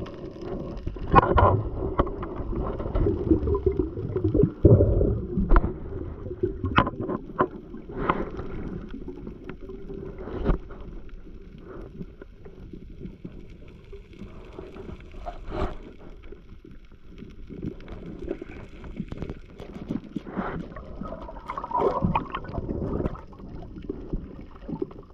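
Underwater noise picked up by a camera in a waterproof housing: muffled rushing and gurgling of water, with irregular sharp clicks and knocks, louder over the first few seconds.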